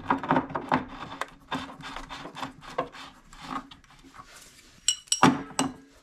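Hands rubbing and scraping at the threaded element port of an electric water heater tank, with short taps throughout. A few ringing metallic clinks come about five seconds in.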